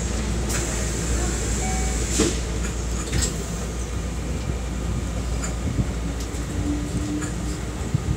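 Steady low hum inside a JR West 225 series 5100 subseries electric train car standing at a station platform, with a few short sharp clicks and knocks about two and three seconds in.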